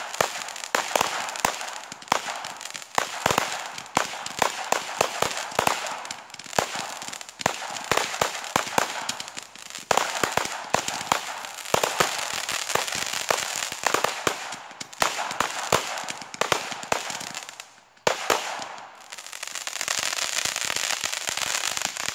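Fireworks going off: dense, rapid crackling and popping with sharp bangs over a hiss. A short lull about 18 seconds in, then a steady hiss.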